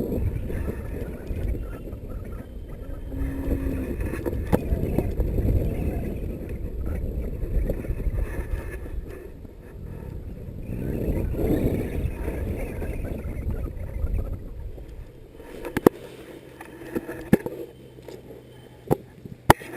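Wind buffeting the microphone in gusts during a paraglider flight. It drops off sharply about fifteen seconds in, leaving a quieter stretch with a few sharp clicks and knocks.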